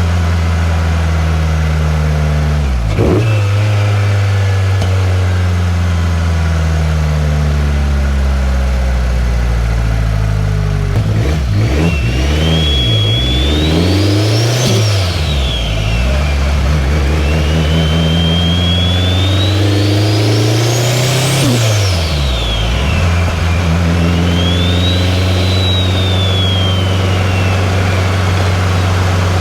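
2003 Subaru WRX's turbocharged flat-four engine running under way. Twice the engine pulls and a high turbo whistle climbs, then falls away sharply as the throttle comes off. A third, softer whistle rises and fades near the end.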